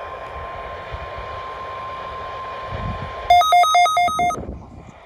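Steady background hiss with a faint constant tone. About three seconds in, a loud electronic two-tone beep breaks in, alternating high and low about five times in a second before it stops.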